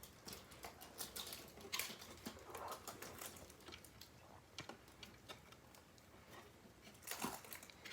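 Faint, scattered light clicks and rustles of cardboard and plastic packaging and vacuum parts being handled while unboxing, with a louder cluster of clicks near the end.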